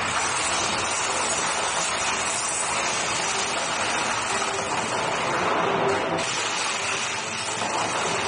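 A steady rushing hiss from a museum exhibition's special sound effects, played over loudspeakers in a large hall.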